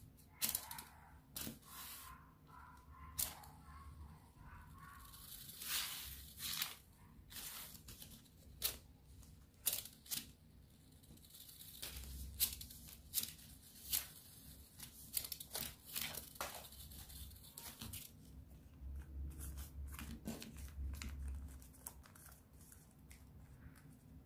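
Folded paper spinning tops spun by hand on a tabletop: papery rustling and scraping as they spin, broken by many sharp clicks and taps as they are launched and handled.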